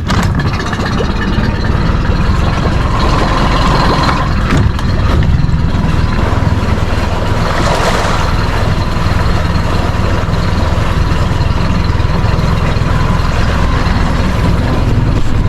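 Boat motor running steadily, pushing the boat along.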